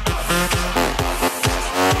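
House-style electronic dance music from a live DJ mix, with a steady kick drum about twice a second under a busy synth and bass line. The deep bass drops out briefly about two-thirds of the way in.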